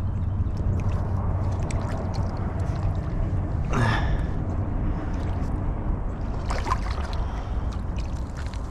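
Water sloshing and splashing at the edge of riprap rocks where a small alligator on a crab line is moving, over a steady low rumble with small clicks. A short breathy gasp comes a little under four seconds in.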